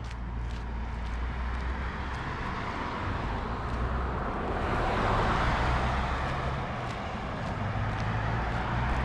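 A car passing on the road, its tyre and engine noise swelling to a peak about halfway through and then fading, over a low steady rumble. Faint footsteps on the pavement tick along at walking pace.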